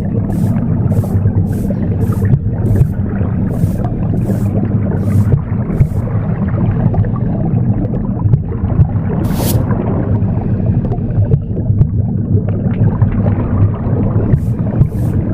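Womb sound, a steady low rumble, mixed with the swish of broom sweeping strokes about twice a second. The sweeping stops about six seconds in, one lone stroke comes about nine seconds in, and the sweeping resumes near the end.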